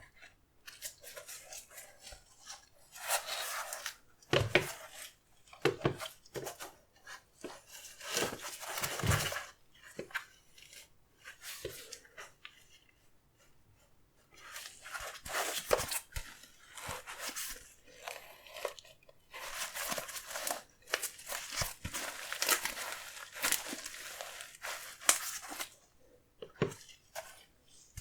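Sneaker box packaging being handled: paper crinkling and rustling in spells, with sharp taps and knocks, and a lull of a few seconds about midway.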